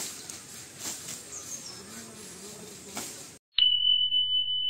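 Outdoor background with birds chirping and a few sharp clicks. After about three and a half seconds it cuts out, and a loud, steady, high electronic beep tone starts and holds.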